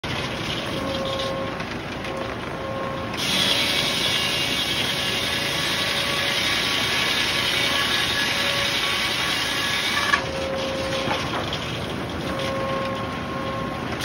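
Large circular sawmill blade sawing an 8 ft red oak board, louder and hissier while the blade is in the wood from about three seconds in until about ten seconds in. The cut ends with a short knock, and the blade then runs steadily between cuts.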